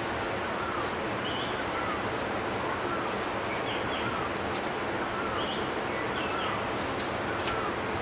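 Forest ambience: small birds calling in short chirps that repeat about every half second over a steady hiss, with a few light clicks.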